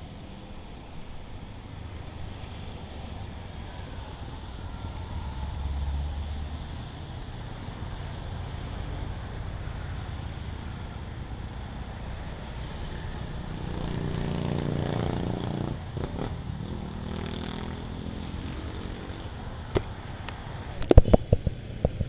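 Road traffic passing: motorcycles and cars going by over a steady low rumble, with engines swelling and fading as they pass, the loudest about two-thirds of the way through. A few sharp knocks near the end.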